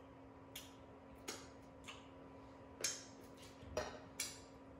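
Lip smacks and tongue clicks of someone tasting cookie dough licked off their fingers: about six short, wet smacks, irregularly spaced.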